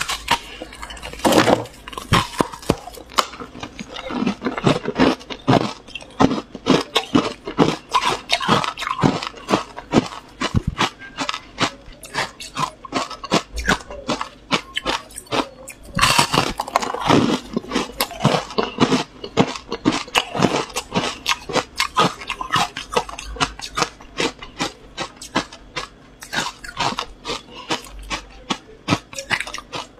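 Close-miked crunching of hard frozen ice chunks being bitten and chewed: rapid, irregular cracking crunches throughout, with a loud bite into a fresh chunk at the start and another about sixteen seconds in.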